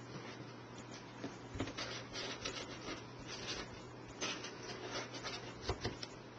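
Faint scratching and rubbing of paper and card stock, with scattered small taps, as a glue pen is worked over a paper cut-out.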